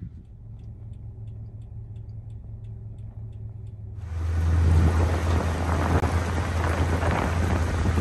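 A low steady engine hum with faint, evenly spaced ticking. About four seconds in it cuts abruptly to loud wind buffeting the microphone over a deeper engine drone, as from a boat moving on the river.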